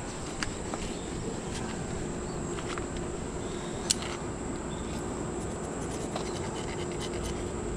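Steady high insect buzz over a steady low hum, with scattered light clicks and scrapes of a small metal tool working at a rusted, mud-caked muzzleloader rifle. The sharpest click comes about four seconds in.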